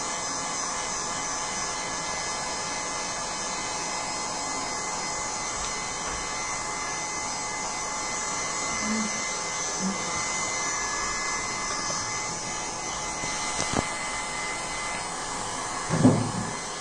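Electric heat gun blowing steadily, a constant rush of hot air with a faint whine, drying the wet craft base on the racket frame.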